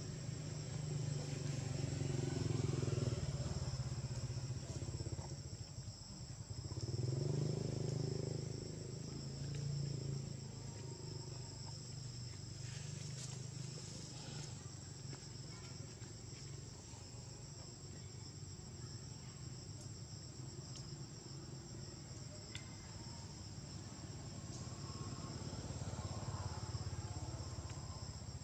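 Insects droning steadily in two high, unbroken tones, over a low rumble that swells near the start and again several seconds in.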